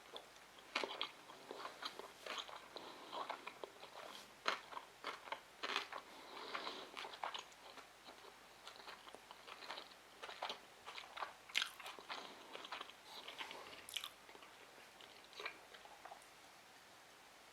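A person chewing and biting sushi rolls: irregular wet mouth smacks and clicks, one after another, with no words.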